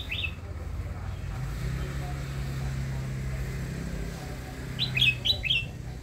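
Caged red-whiskered bulbul calling: one short note at the start, then a quick phrase of about four clear notes about five seconds in. A low steady hum runs underneath through the middle.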